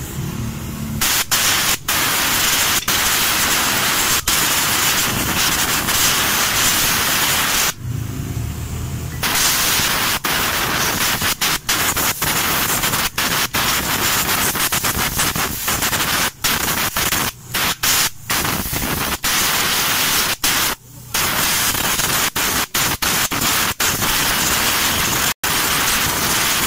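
Compressed-air blow gun hissing in long blasts as it blows dirt out of a scooter's magneto flywheel and stator. The trigger is let go for about a second and a half around a third of the way in, then flicked off and on in quick short gaps later.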